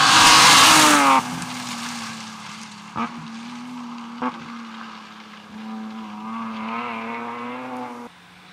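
Rally cars at full throttle on a gravel stage. A BMW E36 rally car passes close, its engine note dropping as it goes by, and the sound cuts off suddenly about a second in. Then a more distant rally engine runs with two sharp cracks about a second apart, its revs climb again near the end, and it cuts off abruptly.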